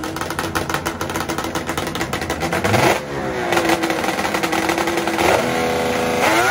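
Drag-racing snowmobile engines revving hard, a rapid stream of firing pulses. The revs drop back about three seconds in and climb again near the end.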